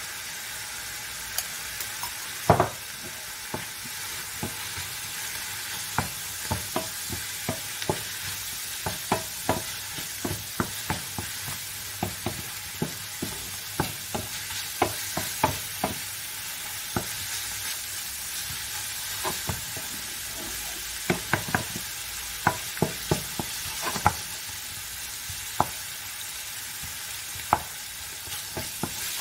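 Mushrooms, parsnip and onion sizzling in oil in a frying pan as a wooden spatula stirs them. The spatula taps and scrapes against the pan many times, one loud knock about two and a half seconds in.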